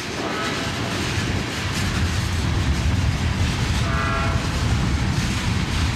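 Freight train rolling along the rails: a steady low rumble of wheels and cars, with a brief faint high squeal about four seconds in.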